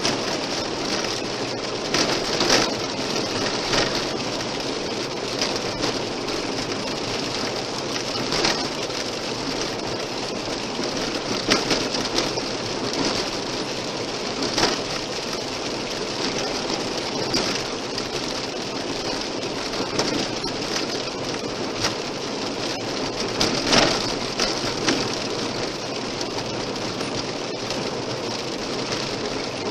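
Car tyres rolling on a gravel road, heard from inside the car: a steady hiss of gravel under the wheels, with loose stones knocking against the underbody every few seconds.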